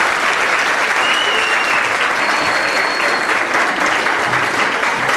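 Audience applauding: a dense, steady round of clapping from many hands.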